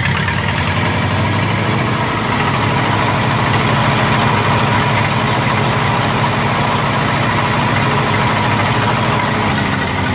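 Lincoln SA-200 welder's four-cylinder gasoline engine running steadily just after starting, with the idler on auto. It sounds like it needs a tune-up, such as new plugs or a cleaned carburetor.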